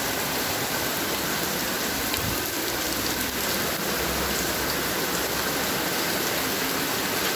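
Rain falling steadily as an even hiss once the hail has stopped, with no hailstones striking.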